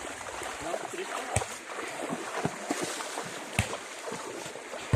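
Water splashing and sloshing, with a few short knocks about a second apart.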